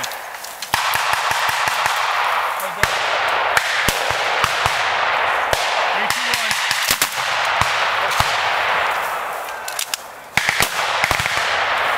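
Blank gunfire from a Bren light machine gun and other guns around it: sharp, irregular shots, some in quick runs, over a steady hiss.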